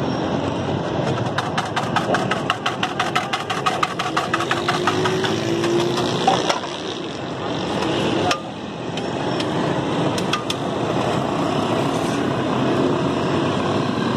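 Metal spatula clattering rapidly on a flat iron griddle, about eight quick strokes a second for roughly four seconds, then a few single taps, over steady street-stall and traffic noise.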